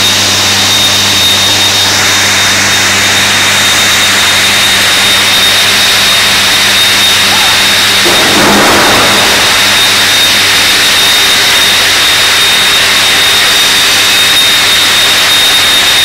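Loud, steady industrial roar of smelting-plant machinery at a furnace's casting line, with a constant high-pitched whine and a low electrical hum. The roar swells briefly about halfway through.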